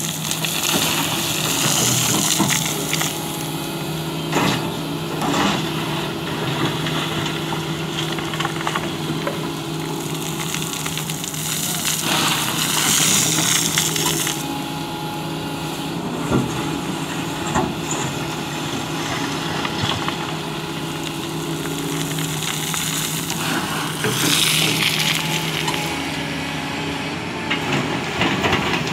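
Doosan crawler excavator's diesel engine running steadily while the bucket digs into gravel and sand, with a rush of grinding, rattling gravel about every twelve seconds and scattered knocks of stones.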